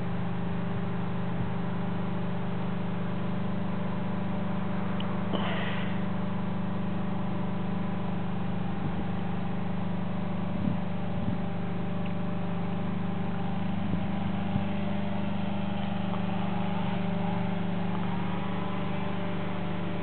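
A motor running at a steady speed, giving an even low hum that does not change, with a short high chirp about five seconds in.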